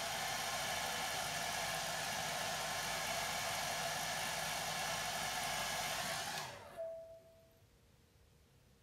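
Handheld hair dryer blowing steadily at close range, drying silicone SculptGel on the skin. It is switched off about six and a half seconds in, and its motor runs down.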